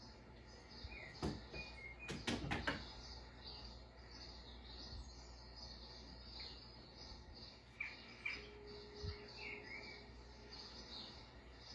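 Faint, rapid high chirps and squeaks from a television playing a mouse video made for cats, with a cluster of sharp clicks about two seconds in.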